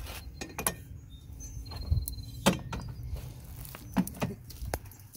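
A few irregular knocks and clunks of someone climbing the Cessna 208 Caravan's metal crew-entry ladder and handling it.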